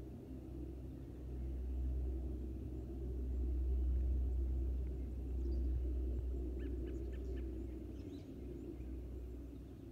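Distant, steady drone of a Lockheed C-130H Hercules' four Allison T56 turboprop engines climbing away after takeoff, swelling and then fading over several seconds. A few short bird chirps come about seven seconds in.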